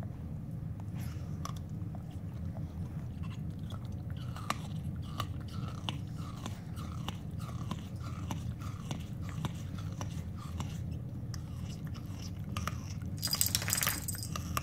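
Boston terrier chewing a bone toy: a steady run of small clicks and crunches of teeth on the toy over a low hum. A run of short squeaks comes about every half second in the middle, and a brief bright jingle comes near the end.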